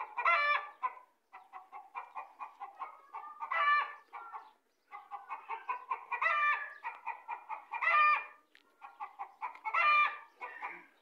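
Chicken clucking in quick runs, with five louder pitched calls about two seconds apart.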